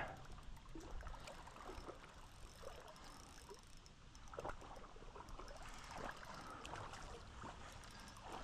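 Faint creek water trickling and lapping, with a few short splashes.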